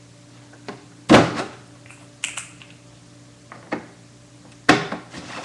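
Several sharp knocks and thuds, the loudest about a second in and another near the end, each dying away quickly.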